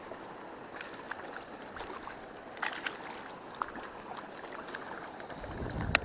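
Stream water running steadily, with scattered small clicks and a sharper click near the end over a brief low rumble.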